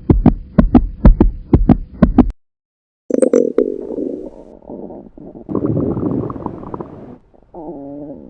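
Stomach growl sound effect: a quick run of sharp rhythmic pulses, about three to four a second, for about two seconds, then after a short gap a long gurgling rumble that wavers in pitch near the end.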